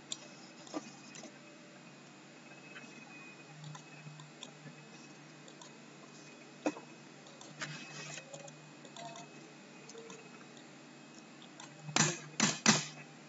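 Quiet room tone with a faint low hum and a few faint clicks, then three loud computer-mouse clicks in quick succession near the end.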